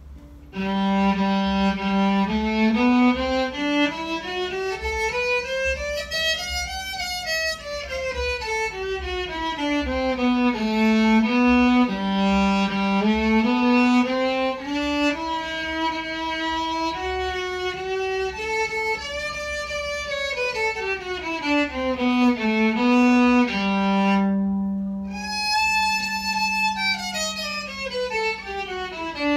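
Old Japanese electric violin bowed through a small amplifier, playing scales that climb in steps from the low G to about two octaves higher and back down, several times over, with long held low notes between runs.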